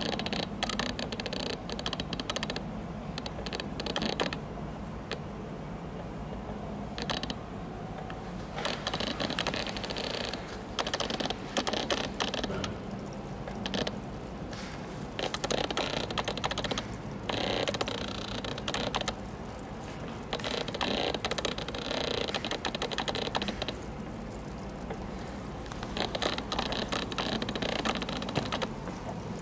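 Aquarium filter pump humming steadily, with patches of rapid clicking and crackle every few seconds.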